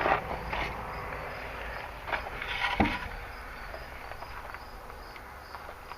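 A flat-blade screwdriver scraping lightly at the metal prongs of the horn's electrical connector to take off soft corrosion: a few separate short scrapes and clicks, the sharpest just before the middle. Crickets chirp steadily in the background.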